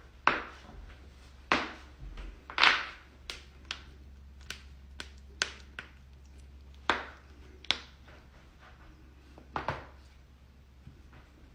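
Human joints cracking and popping: about a dozen sharp cracks at irregular intervals, some short and crisp, others a little longer and fuller, the loudest about two and a half seconds in.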